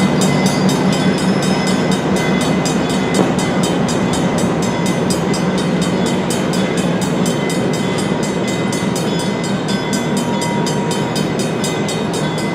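Diesel locomotive of an excursion train running steadily, a continuous loud drone with a fast even pulsing.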